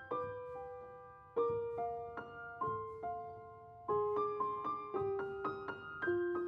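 Gentle background piano music: single notes and soft chords struck and left to ring and fade, a new phrase every second or so.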